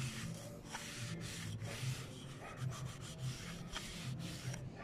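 Cloth rag rubbing oil into a charred pine board in quick back-and-forth strokes, a dry scuffing swish repeated several times a second.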